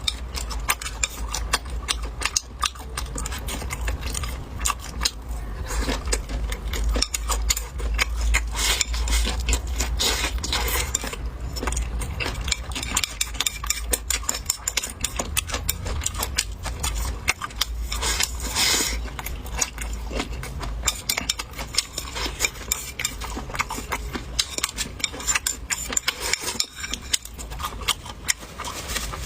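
Eating utensils clicking and clinking against dishes in quick irregular succession, over a steady low hum.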